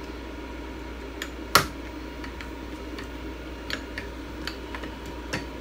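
Scattered small metallic clicks and ticks of a hex driver working the side screws on a Phrozen resin printer's build plate, loosening them. The sharpest click comes about a second and a half in, over a steady background hum.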